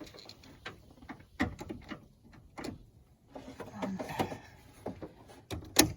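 Irregular clicks, knocks and rustles of equipment being handled, with a loud sharp click near the end.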